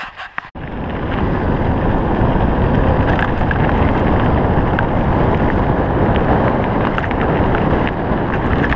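Wind buffeting an action camera's microphone, mixed with tyre noise on gravel, as a mountain bike rolls fast down a dirt road. The steady rushing noise cuts in abruptly about half a second in, after a few short clicks.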